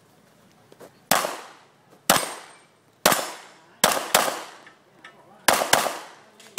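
Pistol shots fired during an IPSC stage, probably from a CZ Shadow. There are about seven shots: three single shots roughly a second apart, then two quick pairs. Each shot rings out in an echo that lasts about half a second.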